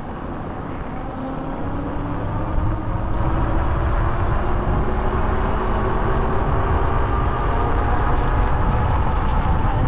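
Car driving, its engine and tyre noise steady, growing louder about three seconds in as it picks up speed and then holding level.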